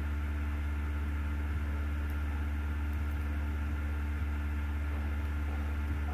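Steady low hum with faint hiss and a few thin steady tones above it, unchanging throughout: background noise with no distinct events.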